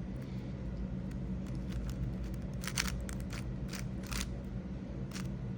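GAN 562 M 5x5 speedcube layers being turned by hand, giving a handful of short plastic clicks, most of them grouped a little before the middle and one more near the end.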